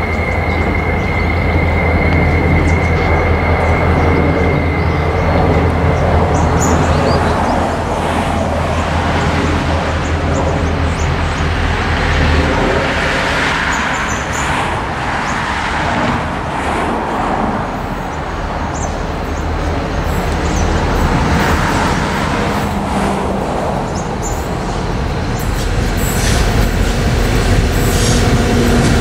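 G-class diesel-electric locomotives hauling a grain train, their engines and the wagons' rail noise getting louder as the train approaches. Near the end thin steady tones come in as wheels squeal on the curve.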